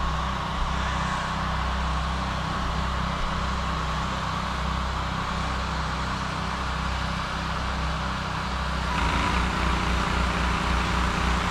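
Gas-engine P40 pressure washer running steadily while its water jet hisses from the spray gun. About nine seconds in, the engine note changes and the spray gets a little louder.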